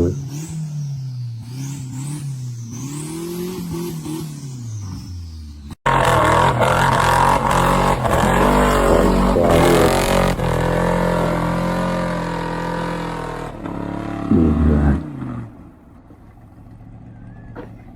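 Off-road vehicle engine revving up and down. After a sudden cut, another engine runs loud and hard, then eases off near the end.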